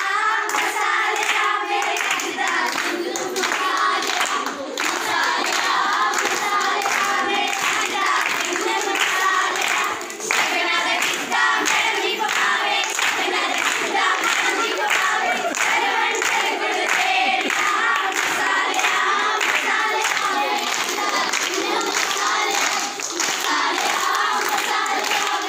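A group of girls singing a Punjabi folk song together, with steady rhythmic hand-clapping keeping the beat.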